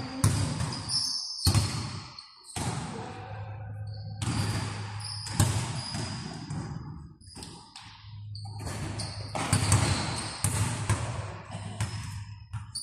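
Basketball game in a gym: the ball bouncing on the court and thuds of players' feet, with repeated short high squeaks of sneakers on the floor, in an echoing hall.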